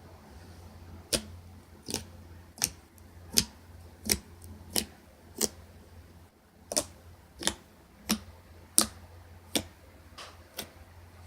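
Slime making sharp popping clicks, about one every 0.7 s, a dozen or so in all, with a short pause midway.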